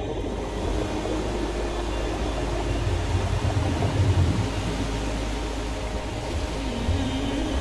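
Steady rushing wind buffeting the microphone on a moving boat, with an uneven low rumble that swells about three to four seconds in.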